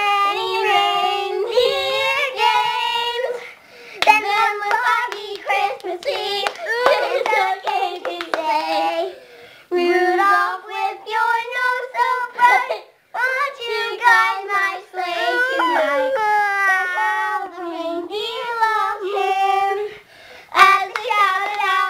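Young children singing in high voices, a string of held notes and slides with short breaks between phrases.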